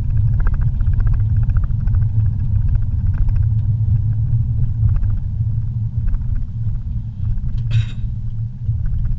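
Steady low rumble of a car's engine and tyres on a paved road, heard from inside the cabin. A brief sharp noise about three-quarters of the way through.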